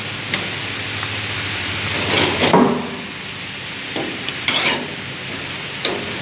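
Pork loin and steaks sizzling steadily on a gas grill on high heat. A metal spatula scrapes across the grates several times as the pork pieces are flipped.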